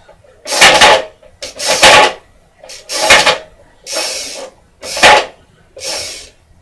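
Board game pieces being handled, making about seven short scraping sounds roughly one a second.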